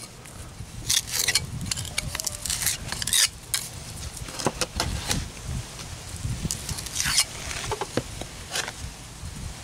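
Trowel scraping and packing a stiff, not-wet Portland-cement-and-sand mix into a cut in a concrete sidewalk, in short irregular gritty strokes. A steady low rumble runs underneath.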